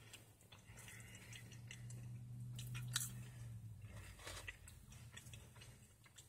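A person chewing french fries: faint, scattered crunches and mouth clicks. A low hum swells and fades in the middle.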